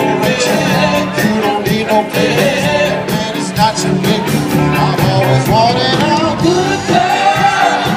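Live band playing: singers with electric guitar and a steady drum beat.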